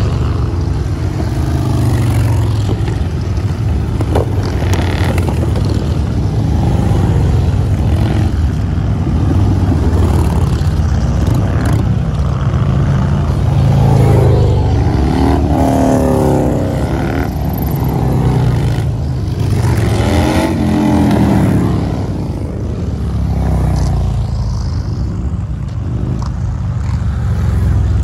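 A procession of touring motorcycles, a trike among them, riding past one after another. Their engines give a steady low rumble that swells and shifts in pitch as each bike goes by, most strongly a little past the middle.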